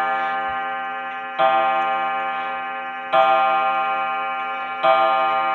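Junghans time-and-strike wall clock, made around 1917–18, striking the hour. Three loud, ringing strokes come about a second and three-quarters apart, each left to ring down before the next, as the rack-and-snail strike counts out the hour.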